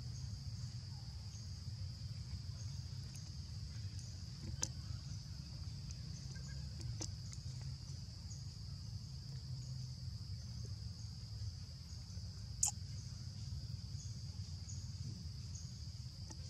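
Steady, shrill insect chorus from the surrounding forest, with a faint pulsing above it, over a low rumble. A few sharp clicks sound, at about 4.5, 7 and 12.5 seconds in; the last is the loudest.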